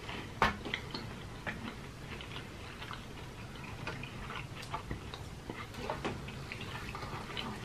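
People chewing crispy fried chicken: scattered soft crunches and mouth clicks at an irregular pace.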